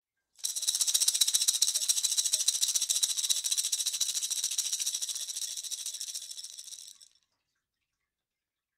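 A continuous rapid rattle, like a shaken percussion rattle, hissy and bright, that slowly fades and stops about seven seconds in.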